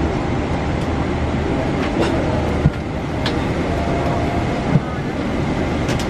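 Steady low rumble of a Boeing 777-300ER's cabin air system on the ground during boarding, with two sharp knocks about two seconds apart midway through.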